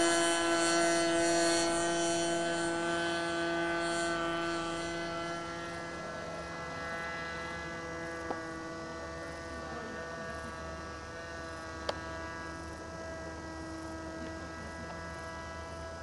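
Propeller engine of a model tow plane running steadily while it tows a glider aloft, its drone slowly fading as it climbs away. Two short clicks in the second half.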